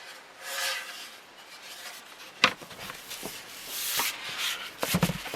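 Wooden ceiling fan blades being handled against their packaging: rubbing and rustling in swells, with a sharp click about halfway through and a low thump near the end.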